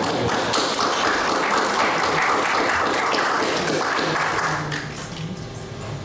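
Audience applauding, a dense patter of many hands clapping that dies away about five seconds in.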